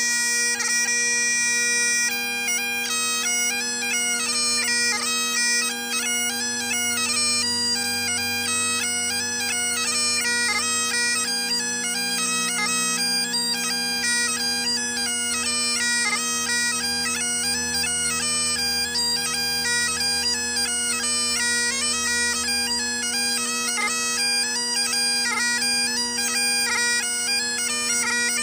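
Great Highland bagpipe playing a tune: steady drones under a quick-moving chanter melody, which opens on one held note for about two seconds.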